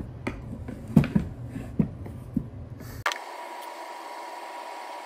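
A few short clicks and knocks of a metal suspension arm and tools being handled on a workbench, the loudest about a second in. At about three seconds this gives way abruptly to a steady hiss with a faint high hum.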